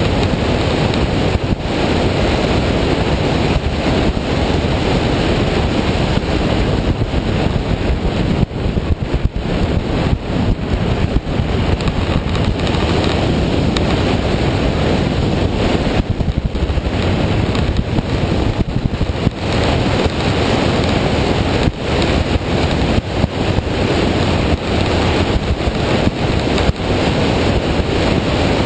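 Wind buffeting the microphone of a camera on a moving motorcycle: a loud, steady rush with constant fluttering, the bike's engine and road noise buried underneath.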